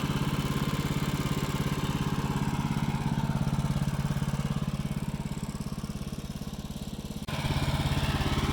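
Wood-Mizer LT15START portable sawmill's engine running steadily with an even pulse, easing slightly, then abruptly louder again a little after seven seconds.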